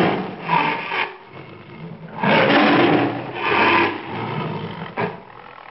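Tiger growling and roaring in several rough bursts.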